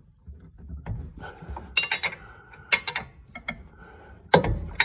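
Wrench turning a rear brake caliper bolt out by hand: a series of irregular metal clinks and clanks from the tool on the bolt and caliper, with a louder clank near the end.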